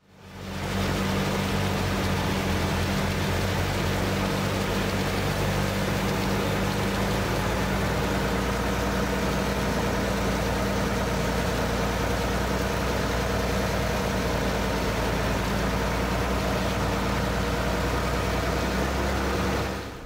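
Steady, loud drone of a tractor engine and a Claas Jaguar 940 self-propelled forage harvester working together while chopping standing maize for silage, heard from inside the tractor cab. It fades in at the start, then holds an even low hum with no change in pace.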